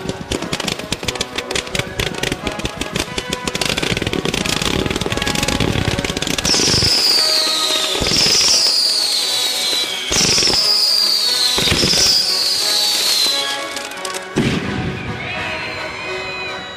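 Consumer aerial fireworks going off: dense rapid crackling at first, then four falling whistles in a row, with music playing throughout.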